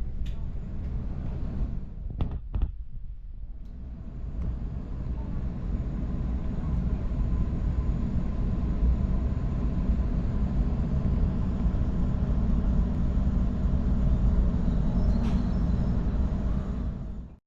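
Sydney Trains electric suburban train, heard from on board, running with a steady low rumble. There are a couple of sharp knocks about two seconds in, and the rumble grows louder over the next several seconds.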